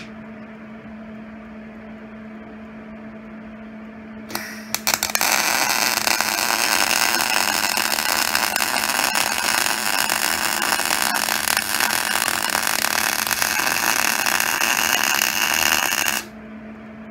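MIG welder arc crackling steadily as a bead is run on cast iron, after a brief spluttering start about four seconds in; the crackle stops suddenly near the end. The pass gave good penetration into the cast iron. A steady low hum runs underneath throughout.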